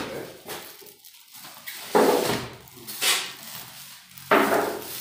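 Foam packing end caps being pulled off a plastic-wrapped inkjet printer: three loud bursts of squeaking foam and crinkling plastic, about a second apart.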